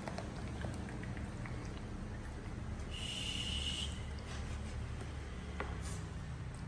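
A young monkey gives one high-pitched squeal, about a second long, about three seconds in. A steady low hum and a few faint clicks lie underneath.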